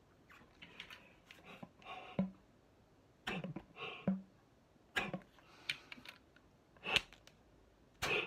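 Breaths drawn and blown through an AP Valves XPD rebreather's mouthpiece in short puffs about a second apart, with light clicks. This is a mouthpiece check that its non-return valves let gas flow only one way round the loop.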